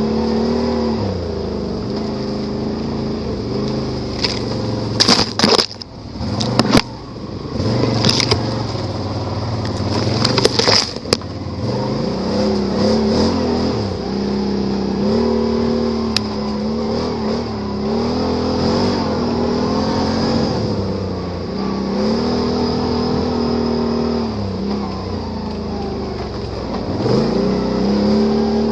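Can-Am Renegade ATV's V-twin engine running under throttle, revving up and easing off again and again every few seconds. Several sharp knocks and bangs come between about five and eleven seconds in.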